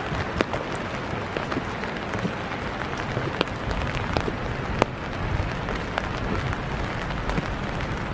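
Steady winter rain falling, an even hiss with scattered sharp drip clicks, a few of them louder.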